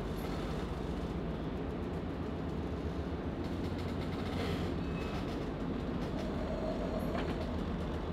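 Steady low rumble of a research vessel's engines and machinery, heard from inside the ship's mess room while at sea.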